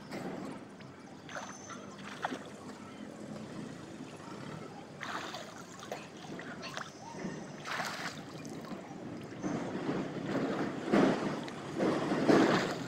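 Water splashing in scattered bursts as a swimmer moves and ducks under in a small pool, with a few louder splashes near the end.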